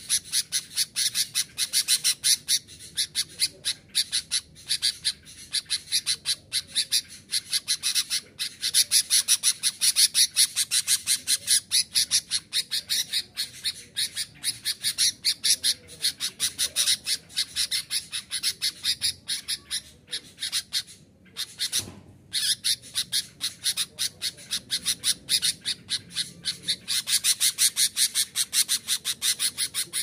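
Sooty-headed bulbul singing nonstop: a fast, almost unbroken run of short, high notes, with a brief pause about two-thirds of the way through.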